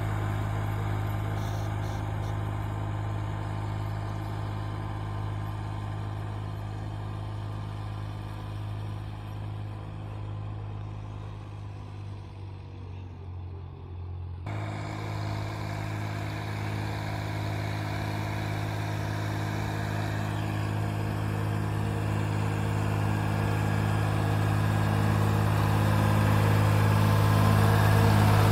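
Ford 4000 SU tractor engine running at a steady speed while pulling a fertilizer spreader across the field. It grows fainter toward the middle as the tractor draws away, then louder and louder as it comes back close near the end.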